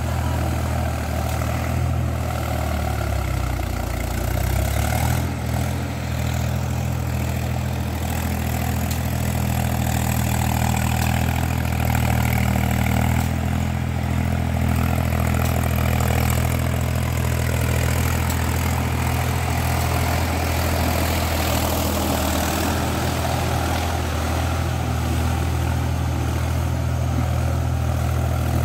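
Mahindra 275 DI TU XP Plus tractor's three-cylinder diesel engine running steadily under load, pulling a cultivator through flooded paddy mud.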